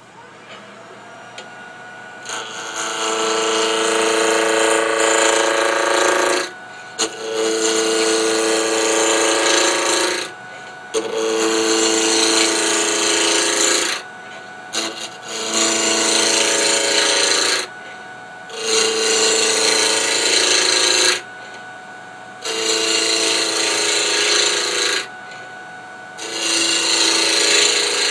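Wood lathe spinning a square black walnut blank while a turning tool roughs it down to round, in seven loud scraping-cutting passes of two to four seconds each with short pauses between. The lathe motor's steady whine runs underneath.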